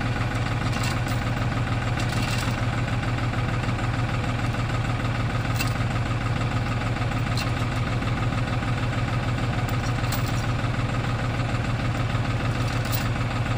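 A vehicle engine idling steadily, with an even low hum that never revs up or down.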